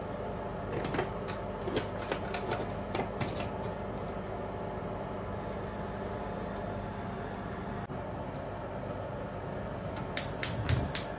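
Steady low kitchen hum with scattered faint clicks, then a quick run of about six sharp clicks or knocks near the end.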